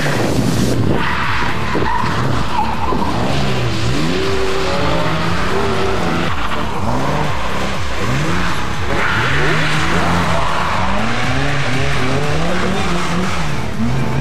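Historic rally cars, a Porsche 911 and then a Datsun 240Z among them, passing one after another at racing speed. Their engines rev up and drop back repeatedly through gear changes, with tyre noise on the tarmac.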